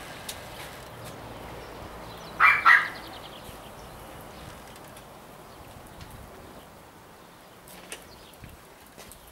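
Two short animal calls in quick succession about two and a half seconds in, the loudest sound here, over a steady outdoor background hiss with a few faint clicks.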